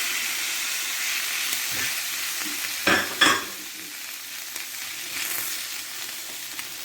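Paella rice and vegetables sizzling in a hot pan as they are stirred, a steady frying hiss. Two sharp clatters about three seconds in are the loudest sounds.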